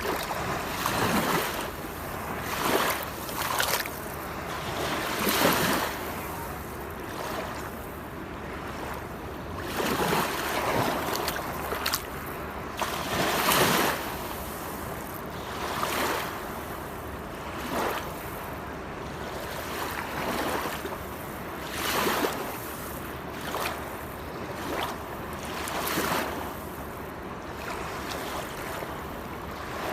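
Waterfall rushing steadily, its splash swelling and easing every two to three seconds.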